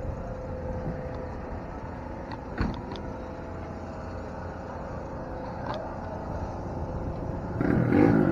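A vehicle engine running steadily with a low rumble and a faint steady hum. There is a short knock about two and a half seconds in, and a louder swell near the end.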